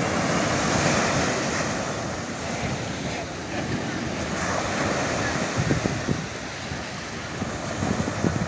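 Small surf breaking and washing up a sandy beach, with wind gusting on the microphone, the buffeting heavier in the second half.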